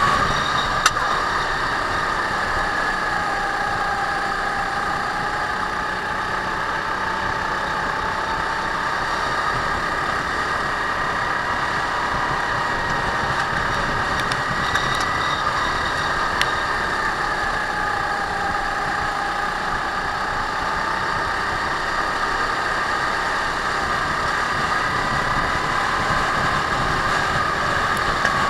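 Racing kart engine running at speed, heard onboard, its pitch easing down and back up slowly through the corners. Two brief clicks, about a second in and midway.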